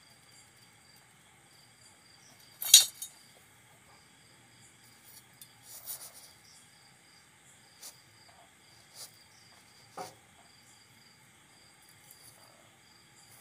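A stainless steel ring set down into a kadai of hot sand: a sharp metal clank about three seconds in, then lighter clinks and gritty sand scraping as it is pressed and bedded in. Crickets chirp steadily in the background throughout.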